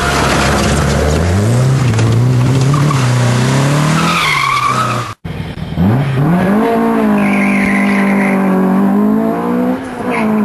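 Opel Kadett C engine revving hard and rising in pitch with tyre squeal as the car slides through a slalom. About five seconds in a sudden cut to a second competition car launching from the start, its engine climbing steeply and held at high revs with more tyre squeal, dipping briefly near the end.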